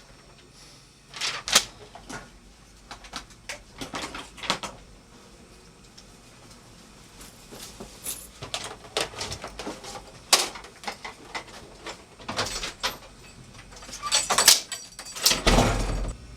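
Irregular knocks and clatters from objects being handled, with a heavier thud near the end.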